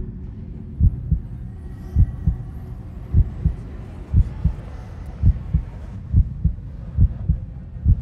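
Slow, heavy bass-drum beat: pairs of deep thumps about once a second, like a heartbeat, over a low hum.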